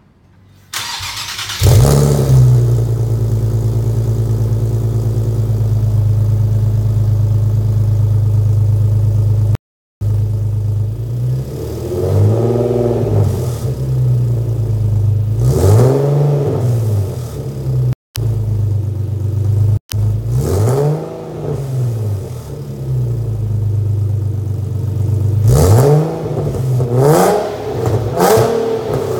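Nissan 370Z Nismo's 3.7-litre V6 through a GReddy Evolution GT exhaust: it starts up about a second and a half in and idles steadily, then is revved in a series of short throttle blips, several close together near the end.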